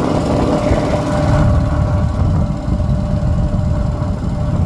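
Boat engine running steadily, a low rumble with a steady drone.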